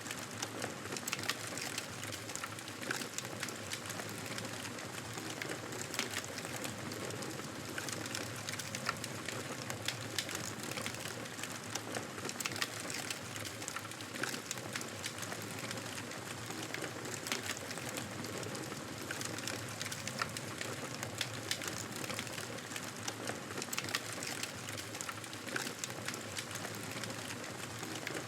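Wood fire crackling in a fireplace: a steady soft hiss with frequent small, irregular pops and snaps.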